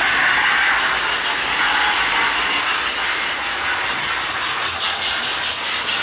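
Lionel 'Electronic Mighty Sound of Steam' module giving a steady hissing steam-chuff sound from the locomotive's speaker, mixed with the rumble of the toy train running on three-rail tinplate track.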